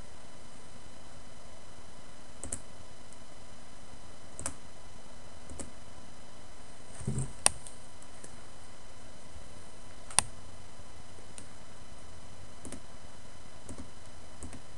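Scattered single clicks of a computer mouse, about ten of them at irregular intervals, over a steady hiss. A slightly heavier knock and click come near the middle.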